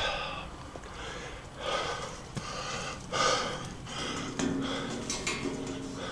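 A man breathing heavily close to the microphone, one breath about every second and a half.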